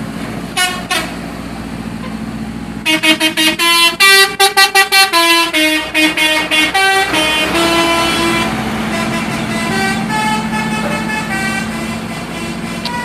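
Bus 'telolet' multi-tone horn playing a tune: two short toots, then from about three seconds in a rapid run of short notes at changing pitches, followed by longer held notes. A steady low engine hum runs underneath.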